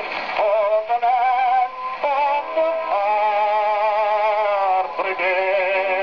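Old 78 rpm shellac record playing on an acoustic gramophone: a melody of held notes with vibrato, changing pitch every second or so, with the narrow, thin tone of an acoustic-era recording.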